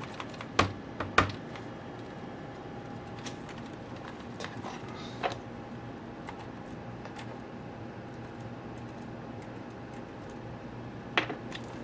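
Two sharp plastic clacks about a second in as the iBook G4's plastic case is handled, then scattered faint clicks of screwdriver work on the case, with another sharp clack near the end, over a steady low hum.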